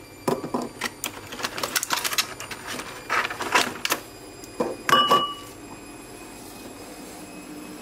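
Eggs lifted out of a clear plastic egg carton and set into a ceramic bowl: a run of plastic crackles, clicks and light knocks, with a short ring from the bowl about five seconds in. After that only a steady low hum remains.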